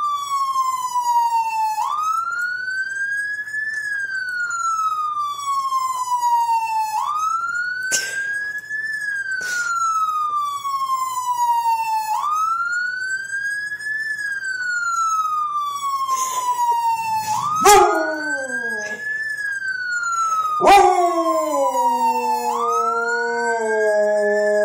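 Siren wailing in slow rising-and-falling sweeps, about five seconds per cycle. From about two-thirds of the way in, a dog joins with long howls beneath it: notes that slide down, then hold.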